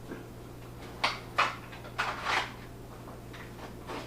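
Handling noise of a handgun draw: quick rustles of the vest being swept back and clicks of the pistol coming out of an open Kydex holster, four short sounds between about one and two and a half seconds in, over a steady low hum.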